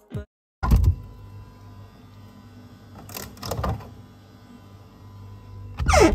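Refrigerator with its door open, humming steadily, with a thump about a second in, a few knocks as things are handled in the door shelves, and a louder falling swish near the end.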